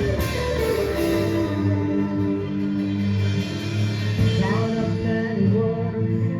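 Live gospel band music: held chords over a steady bass line, with a cymbal crash at the start and a little singing over it.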